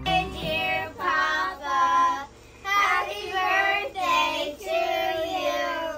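A child singing a high-pitched melody in short phrases, with a brief pause about halfway through.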